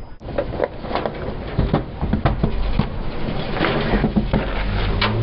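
Objects crunching and snapping under a car tyre as it rolls over them: a quick, irregular run of crackles and sharp snaps over a low rumble.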